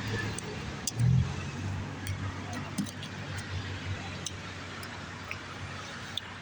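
Steady low hum of vehicle traffic, swelling briefly about a second in, with scattered faint clicks.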